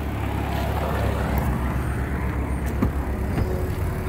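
2008 Suzuki Forenza's four-cylinder engine idling with a steady, evenly pulsing low hum, and a couple of light clicks about three seconds in.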